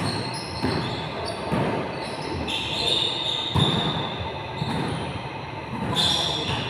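Basketball bouncing on a gym court during a pickup game, a few scattered thuds, echoing in a large hall.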